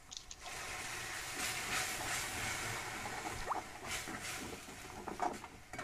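Tomato puree sizzling and hissing as it hits the hot kadai over the fried masala paste. A few scrapes and taps of the spatula on the pan come near the end.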